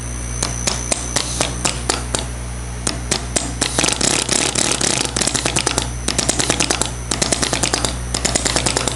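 A row of eight small actuators clicking as a sequence controller fires them in turn, about four clicks a second at first, then a fast crowded clatter from about four seconds in. A steady low hum runs underneath.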